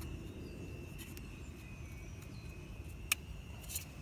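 Small clicks of the anemometer's plastic cups being wiggled loose from the rotor by hand: one sharp click about three seconds in, then a few lighter ones near the end, over a steady low outdoor rumble and a faint high whine.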